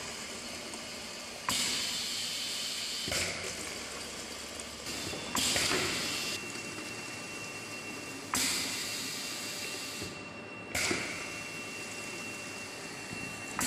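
Semi-automatic single-nozzle filling machine cycling, with a hiss that starts sharply and louder every two to three seconds and fades between strokes.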